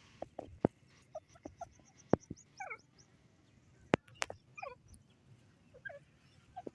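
Grey francolin giving soft short calls, including a couple of quick runs of falling notes, with several sharp clicks in between.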